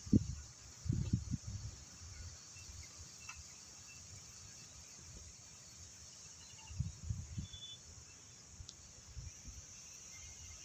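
Steady high chirring of insects, with a few low rumbling thumps on the microphone in the first two seconds and again about seven seconds in.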